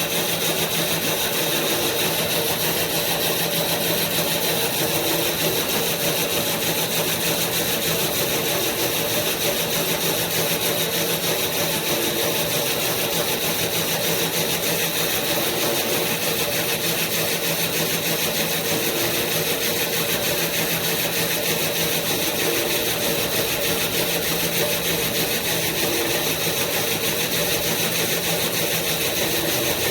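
Plastic-waste filament extruder running under power, its electric motor drive turning steadily with an even, unchanging machine sound made of several steady tones.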